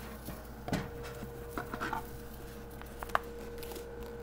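A few light knocks and clicks of objects being handled: one about a second in, a small cluster near the two-second mark, and a sharp click about three seconds in, over a steady low hum.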